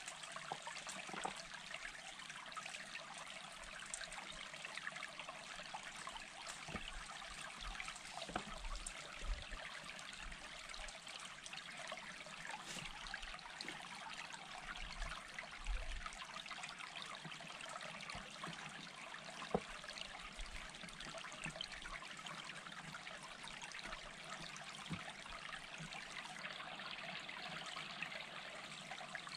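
Steady trickling of a small stream, with a few sharp knocks of stones being set down on a dry-stone wall, the loudest about two-thirds of the way through.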